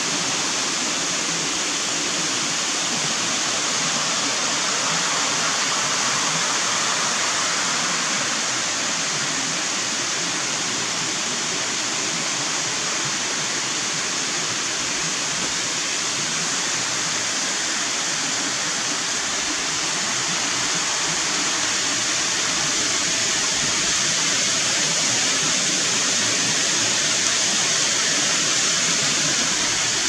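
A rocky creek rushing over small waterfalls and sheets of bedrock: a steady, unbroken rush of water, slightly louder in the last third.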